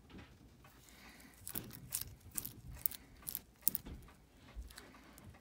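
Light, irregular metallic clicks from a Seiko 7002 dive watch being turned and handled in the fingers, bunched in the middle of the stretch.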